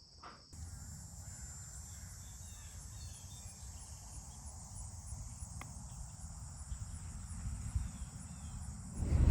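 Insects chirring in a steady high drone, with faint regular pulses, over a low rumble. It starts about half a second in and stops near the end.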